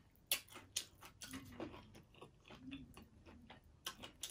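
Close-up chewing of taco salad made with broken taco shells, with a scattering of sharp crunches.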